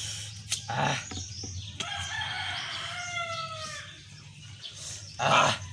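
An animal's long drawn-out call lasting about two seconds, its pitch falling slightly at the end. It is framed by short loud bursts of sound, one near the start and a louder one near the end.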